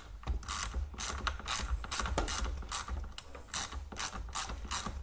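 Small ratchet clicking in quick repeated strokes, about three a second, as a T20 Torx bit backs out a self-tapping screw holding the cooling fan to the plastic radiator.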